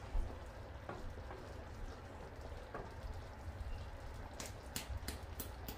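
Thick shiro stew simmering in a pot, its bubbles bursting in irregular soft pops that come quicker and sharper over the last second and a half.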